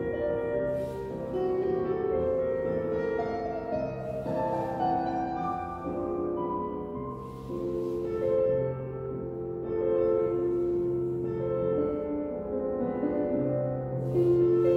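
Classical piano music for a ballet barre exercise, a flowing melody of long held notes. A few brief hisses come and go over it.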